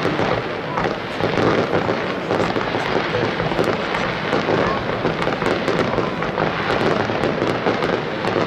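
Aerial fireworks display: a continuous barrage of shells launching and bursting, with many sharp pops and crackles in quick succession and no break.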